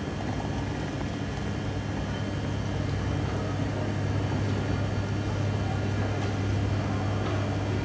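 Omnéo Premium NOMAD electric train running: a steady rumble with a strong low hum and faint steady tones, growing slightly louder, then cut off abruptly at the end.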